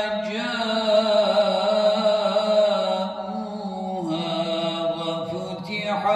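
A man reciting the Quran in melodic tilawat style, drawing out long ornamented notes that bend up and down in pitch. There is a short break near the end before a new phrase begins.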